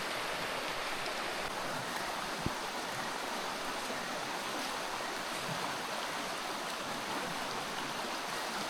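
Steady rush of flowing water in a jungle stream, with one brief knock about two and a half seconds in.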